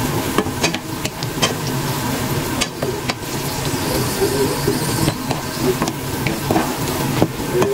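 Parboiled peanuts with sliced chillies frying in hot oil, sizzling steadily. A wooden spatula stirs them, and the nuts scrape and click against the pan many times.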